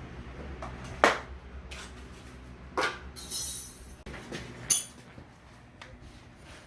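A few sharp metallic clinks and knocks, one to two seconds apart, from metal parts and tools being handled, with a short hiss in between, over a steady low hum.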